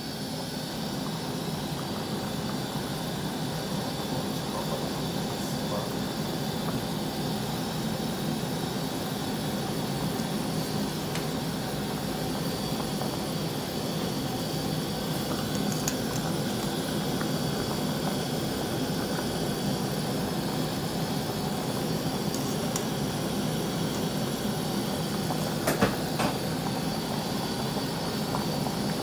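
Pot of beef and pork sinigang broth at a rolling boil, bubbling steadily, with a short knock near the end.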